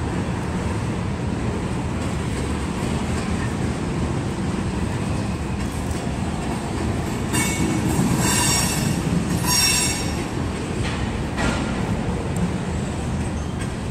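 BNSF mixed freight train's tank cars rolling past with a steady low rumble. High-pitched metallic wheel squeal rises in several bursts a little past halfway through.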